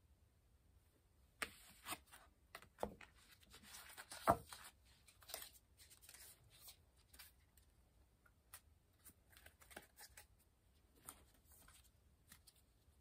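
Tarot cards being handled: the drawn card and the deck picked up off a cloth-covered table and gathered, a run of light clicks, slides and rustles of card stock, with the loudest knock about four seconds in.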